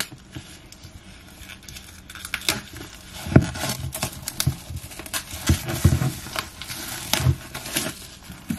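Plastic shrink-wrap film being peeled and torn off an album box, with irregular crinkling and crackling that grows busier after the first couple of seconds.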